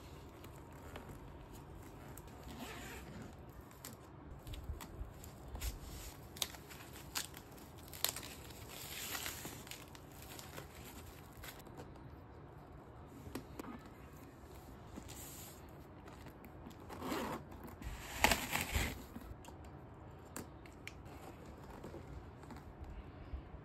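Packing paper crinkling and rustling as it is pulled out of a new handbag, with scattered small clicks and scrapes of handling. The rustling grows louder for a couple of seconds about three-quarters of the way through.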